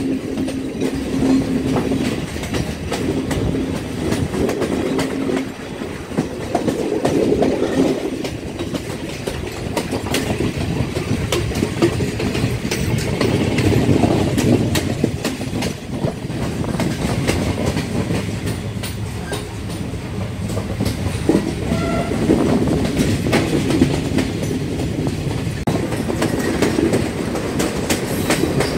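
Passenger train running at speed, heard from inside a moving carriage: a steady rumble with the wheels clattering over the rail joints. A steady low hum sits under it for the first five seconds or so.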